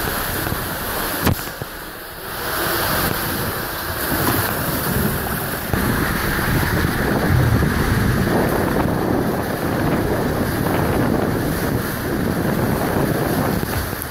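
Steady rush of water and spray inside an enclosed tube water slide as a rider slides down it, with a single sharp knock about a second in.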